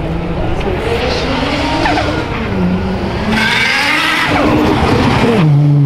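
Nissan Skyline R33 engine revving up and down through the gears as the car climbs a steep hill-climb course, with tyres squealing for about two seconds near the middle.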